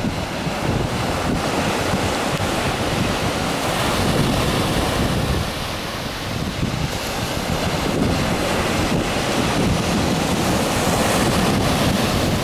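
Wind buffeting the microphone with a low rumble, over the steady wash of surf on a sandy beach, swelling a little now and then.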